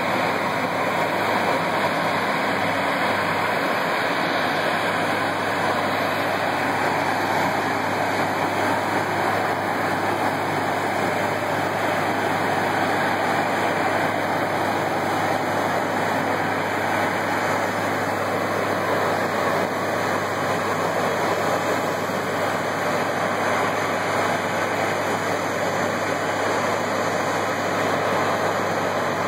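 Steady mix of engine noise and rushing water: an Airbus A320's jet engines running at taxi power, the pumps of airport fire trucks, and water jets spraying in a water-salute arch. A low hum runs under an even noise with no breaks.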